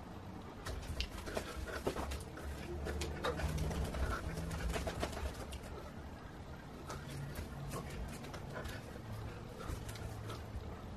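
A man's low, wordless humming and cooing vocal noises in short half-second phrases, with scattered sharp clicks from the mouth or hands.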